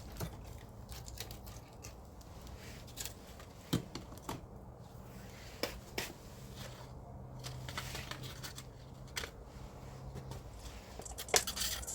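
Dry twigs and kindling crackling and snapping in irregular sharp clicks, with a quick cluster of louder snaps near the end, while a campfire is being got going.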